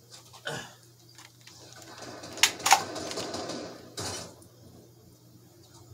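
Handling noise while the second test shell is made ready: two sharp clicks about a quarter second apart near the middle, with rustling and a knock a little later.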